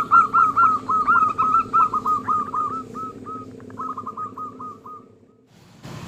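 Local zebra dove (perkutut) with a small, raspy voice cooing in a rapid run of short hooked notes, about six a second, which grows softer partway through and stops about five seconds in.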